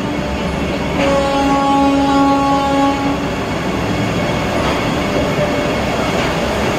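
A Vande Bharat Express electric trainset moving slowly alongside the platform, with a steady low rumble. About a second in, a steady pitched tone sounds for about two seconds.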